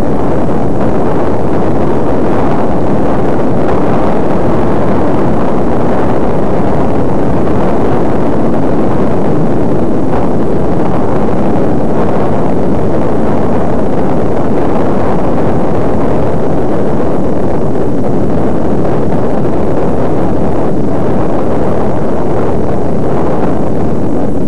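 Loud, steady rushing of wind buffeting the microphone of a camera moving up a road climb, mixed with rumble from the ride.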